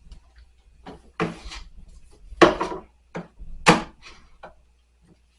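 Groceries and kitchenware being handled and set down on pantry shelves: a short rattle about a second in, then several separate knocks and clatters, the loudest two about halfway through and near the end.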